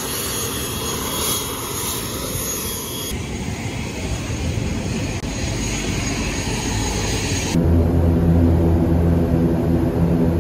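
Twin-turboprop airliner engine noise out on the apron, a steady whooshing whir mixed with wind. About seven and a half seconds in it changes to a steady low droning hum with a clear pitch, heard inside the aircraft cabin.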